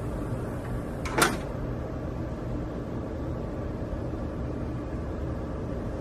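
Mesh pool-safety-fence gate latching shut with one sharp click about a second in, over a steady low background hum.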